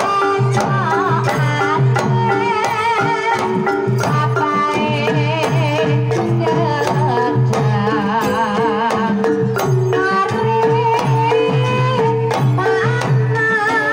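Banyumasan tayub gending played live on gamelan. A sinden's voice sings wavering, vibrato-laden lines over kendang hand-drum strokes that repeat throughout and small bossed gongs struck with a mallet.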